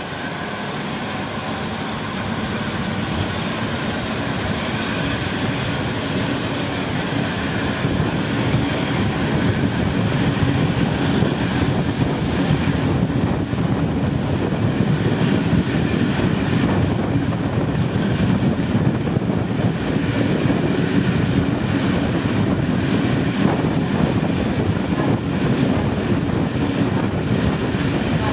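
Train running along the track: a steady rumble of wheels on rails that grows louder over the first several seconds, then holds steady.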